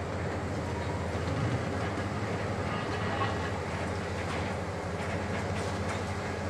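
Heavy diesel engine and hydraulics of a Hitachi KMC870 demolition excavator running steadily under load as its long telescopic boom moves, with light clattering in the second half.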